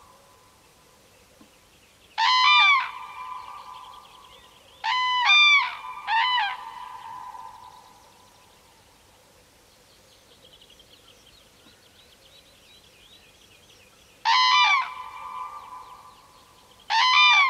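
Common crane trumpeting: loud, ringing calls, one about two seconds in, two close together around five and six seconds, then one near fourteen seconds and another at the very end, each call trailing off slowly.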